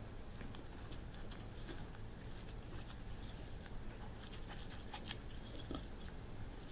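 Silicone spatula stirring a thick powdered-sugar glaze in a glass measuring cup: faint, irregular soft scraping with light ticks against the glass, busier in the second half.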